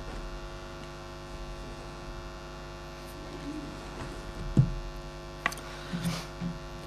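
Steady electrical mains hum in the recording, with a sharp knock about four and a half seconds in and a few softer knocks and rustles after it.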